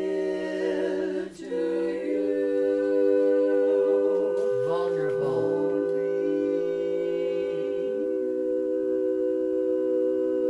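Women's a cappella quartet singing a ballad in four-part harmony, holding long sustained chords. There is a short break for breath about a second in, the lowest voice moves around the middle, and the chord changes near the end.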